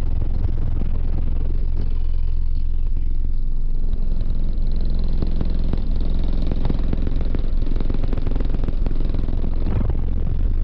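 Orion HCCA subwoofers pounding out loud, deep bass in a car, with rattling from the vehicle's panels. The bass pattern changes about four seconds in.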